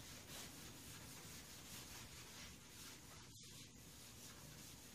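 Faint rubbing of a gloved hand wiping wood stain along pine boards, in soft, irregular strokes over a low hiss.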